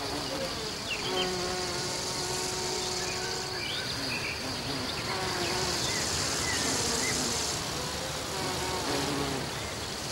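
Flies and bees buzzing in flight around flowers, several hums rising and falling as they pass, one held for about two seconds, over a steady high hiss.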